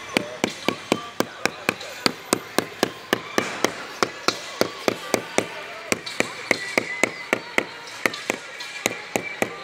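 Rubber mallet tapping a patterned cement floor tile down into its mortar bed, with quick, even knocks about three to four a second, which settle the tile level with its neighbours.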